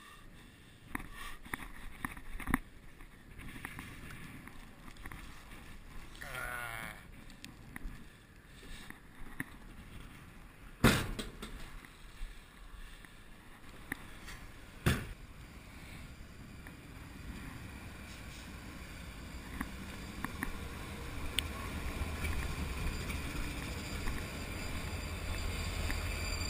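Metal knocks and rattles from working a Seedburo grain probe at the open roof hatch of a covered hopper railcar full of corn. Two sharp bangs come about eleven and fifteen seconds in. A low rumble of wind on the microphone then builds toward the end.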